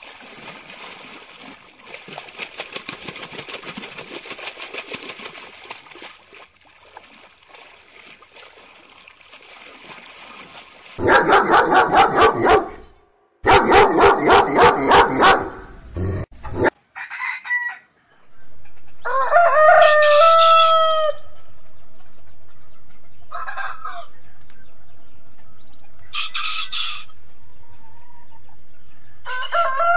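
A rooster crowing several times in the second half, each crow a stacked call that rises and then holds, with shorter high calls between. Before that comes a fainter splashing, crackling haze, then a loud run of rhythmic pulses for about five seconds.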